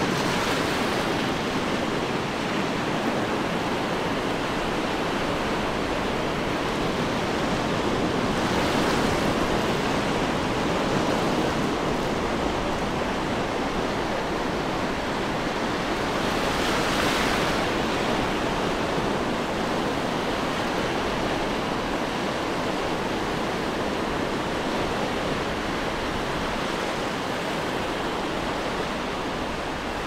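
Ocean surf: a continuous wash of waves breaking and running up the shore. It swells louder twice as bigger waves break.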